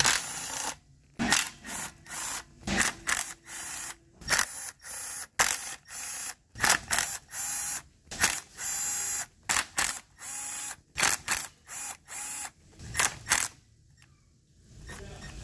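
Milwaukee cordless driver spinning out Torx 30 valve-body bolts from a Ford 6R80 transmission, run in many short trigger bursts of about half a second each, roughly one a second, with a brief pause near the end.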